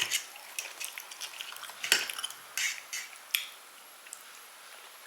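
Cutlery clinking and scraping against a plate, in scattered light taps with a few sharper clicks during the first three seconds, quieter near the end.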